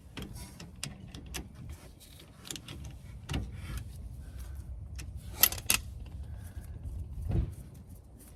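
Metal hand tools and brake parts clinking and tapping as a car's rear brake assembly is worked on, with two sharp clicks close together about five and a half seconds in, over a steady low rumble.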